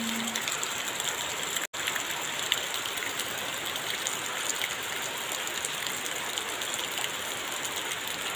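Steady rain falling: an even hiss with scattered ticks of individual drops. It cuts out for an instant a little under two seconds in.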